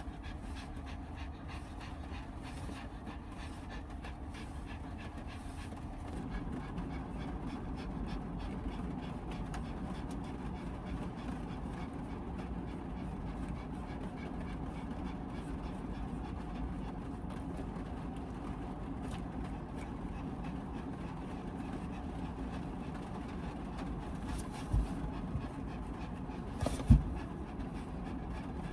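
Pomeranian panting steadily, over the constant hiss of heavy rain on a small van. Two short knocks sound near the end.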